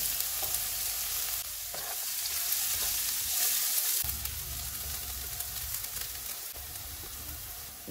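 Diced onion frying in hot oil with cumin seeds in a nonstick pan: a steady sizzle, stirred with a spatula, growing gradually quieter as the onion settles in the oil.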